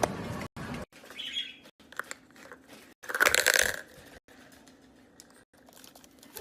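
A parrot giving one loud, harsh squawk just after three seconds in, with a shorter, higher chirp about a second in.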